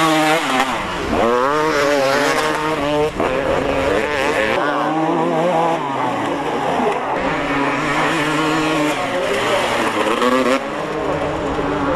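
Two-stroke motocross bike engines revving hard on a dirt track. The pitch climbs and drops over and over with throttle and gear changes. The sound switches abruptly from one bike to another several times.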